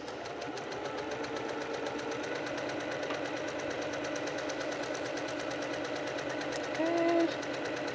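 Brother sewing machine running steadily, stitching a quarter-inch seam through two layers of quilting cotton, with a rapid, even stitching rhythm. A short pitched hum comes in about seven seconds in.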